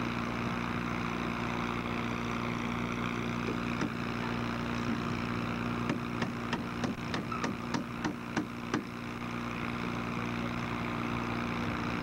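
Flatbed truck's engine running steadily as it pulls slowly away. Midway a quick run of about a dozen sharp clicks, roughly four a second, sits over the engine sound.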